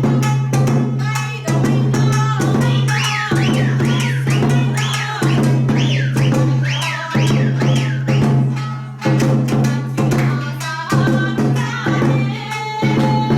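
Dance music with a steady drum beat and a melody line that swoops up and down.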